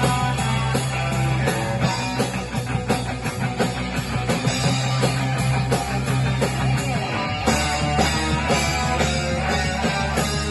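Punk rock band playing an instrumental passage: electric guitar over bass and drums, with no vocals.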